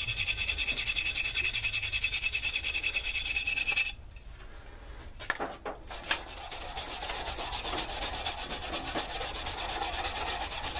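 Old copper wire brush scrubbed in rapid back-and-forth strokes on a steel draw knife blade, taking off rust loosened by a vinegar soak. The scrubbing stops about four seconds in and starts again about two seconds later.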